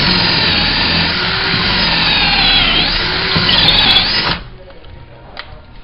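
Power drill boring out a stripped hinge-screw hole in a wooden door jamb, its motor pitch wavering under load; it stops suddenly a little over four seconds in.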